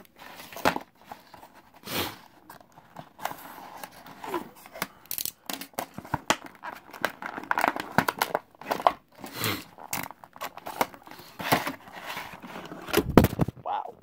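Clear plastic blister packs crinkling, crackling and snapping as they are cut with a box cutter and torn open by hand, in irregular bursts. A louder knock comes near the end.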